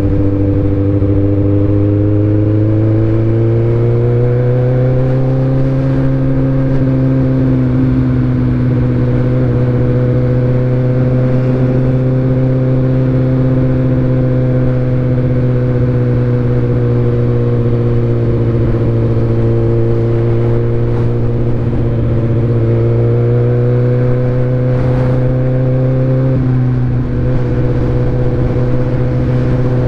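2019 Kawasaki ZX-14R's inline-four engine and exhaust running at low cruising revs. The pitch rises gently over the first few seconds, then holds, with small dips and rises as the throttle eases off and on.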